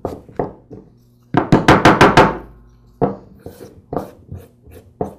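An aluminum air-compressor valve head knocking and rattling against a wooden workbench as it is scrubbed with a rag: scattered knocks, with a quick run of about seven loud knocks a little over a second in.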